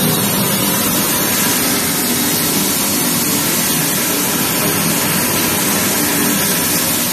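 ABS plastic pelletizing line running: steady, loud machinery noise with a low hum underneath.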